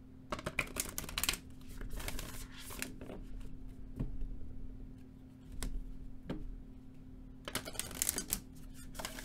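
A deck of tarot cards being shuffled by hand: riffle shuffles that make rapid fluttering clicks, in two bursts in the first three seconds and another near the end, with single taps of the cards in between.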